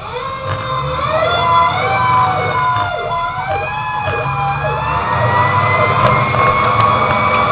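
Fire engine siren winding up, its pitch climbing slowly and steadily, with the truck's engine rumbling underneath.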